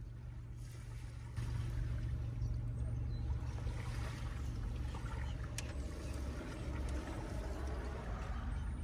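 Breeze blowing through the open van and rumbling on the microphone. It is a steady low rumble that gets louder about a second and a half in.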